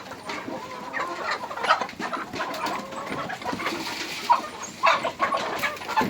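A flock of chickens clucking, with many short calls overlapping and a few louder calls standing out.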